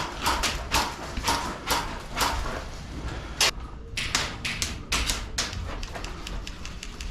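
Footsteps of a person walking at a steady pace, about two steps a second, with a sharper knock about three and a half seconds in.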